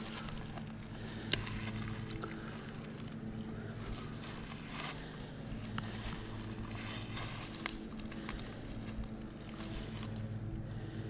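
Quiet outdoor ambience: a steady low drone under a faint hiss, with a few light clicks.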